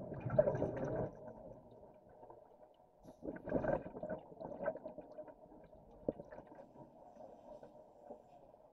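Underwater bubbling in two bursts, one right at the start and another about three seconds later, from a scuba diver's exhaled breath leaving the regulator.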